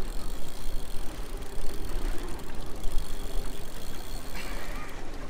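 Wind buffeting the microphone with a heavy low rumble, over the steady running of the boat's outboard engines.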